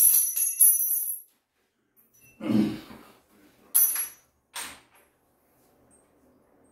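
Screwdriver and small metal door-latch parts clinking: a ringing metal clatter in the first second, a dull knock about two and a half seconds in, then another short metal clink and a light click near four seconds.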